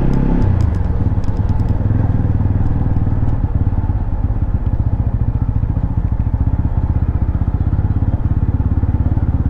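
TVS Apache RTR 200 4V's single-cylinder engine running steadily as the motorcycle is ridden slowly, its even firing pulses close up. A few faint clicks in the first couple of seconds.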